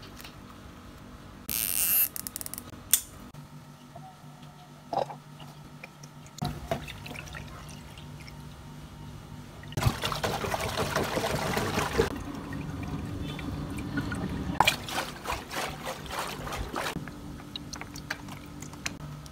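Water from a garden hose running into a stretchy rubber toy, filling it like a water balloon. There is a short loud burst of noise about two seconds in, and the rushing water gets louder later on, with scattered clicks and knocks from hands handling the stretched rubber.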